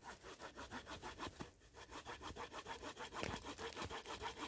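Small fine-toothed saw blade fitted to a Daicamping DL30 multitool sawing through wood in quick short strokes, several a second, with a brief pause about a second and a half in. The blade is a thick one, not new, and advances slowly in the wood.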